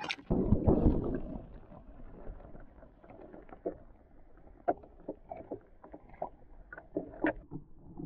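Water rushing and splashing as the camera is plunged into the lake, loudest about half a second to a second in. Then muffled underwater clicks and knocks, heard through the submerged microphone.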